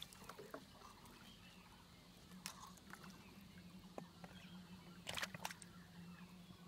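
Mostly near silence with a faint steady low hum and faint chirps, a few light knocks, and a short splash of water about five seconds in as a plastic bottle trap is handled at the surface.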